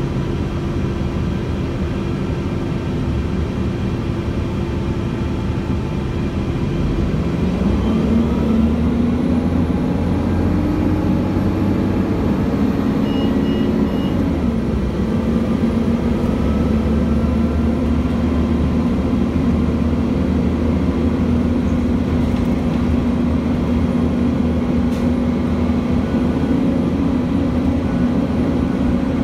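Heard from inside the cabin, a 2006 Gillig BRT transit bus's Cummins ISL inline-six diesel with its Voith automatic transmission: the engine runs low and steady, rises in pitch as the bus pulls away about seven seconds in, drops once about halfway through as the gearbox shifts, then holds a steady drone at cruising speed.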